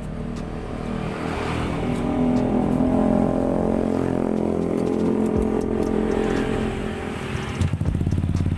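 Yamaha Aerox 155's single-cylinder engine revved up, held high for a few seconds and let fall back, running through a bare stainless header with no silencer fitted. Near the end it settles into a loud, fast, evenly pulsing idle.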